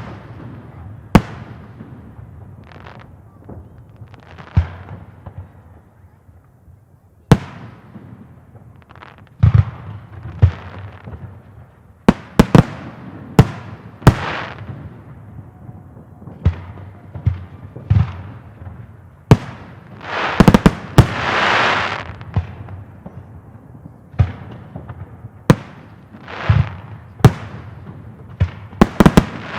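Fireworks display: aerial shells bursting in a string of sharp bangs at uneven intervals, some in quick clusters. Twice, about two-thirds of the way through and again at the end, a longer rushing swell of noise lasts a second or two.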